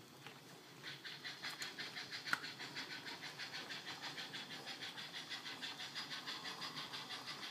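Model steam-loco sound decoder playing an LBSC Terrier's exhaust chuff, starting about a second in as a steady, even beat of about five chuffs a second. A single sharp click is heard a little after two seconds in.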